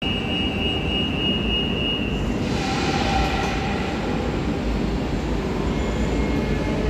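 Rodalies commuter electric train moving slowly along an underground station platform, with a steady low rumble. A high steady squeal sounds for about the first two seconds, then a hiss rises about two and a half seconds in and fades.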